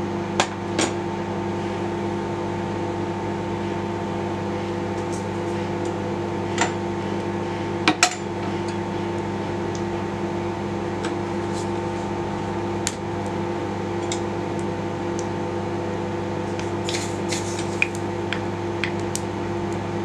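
Microwave oven running with a steady electrical hum while it cooks the batter, with a few light clicks and knocks over it, the loudest about eight seconds in.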